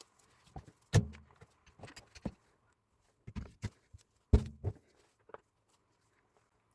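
A series of light knocks and clicks with two heavy thuds, about a second and about four seconds in: hard parts or tools being handled and set down on a workshop bench.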